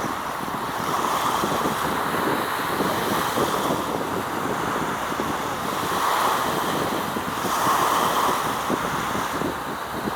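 Wind buffeting the microphone over a steady rush of wind and water, swelling and easing every few seconds.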